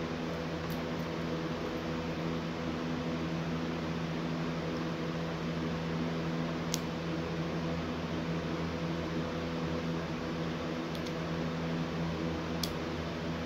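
A steady mechanical hum holding several constant tones, with a few short sharp clicks of small Lego plastic pieces being handled and pressed together: one midway and two near the end.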